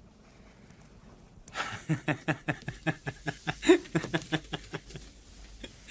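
A man laughing in a long run of short, even pulses, about five a second, starting about a second and a half in after faint room tone.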